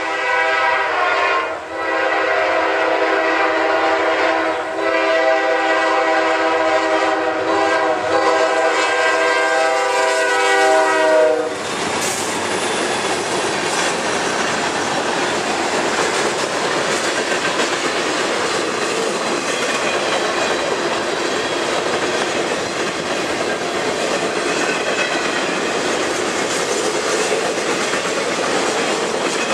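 Air horn of a freight train's lead locomotive, a GE C40-8W, sounding a long blast that breaks briefly twice and cuts off about eleven seconds in. Then the steady rolling noise of the passing freight cars, their wheels clacking over the rail.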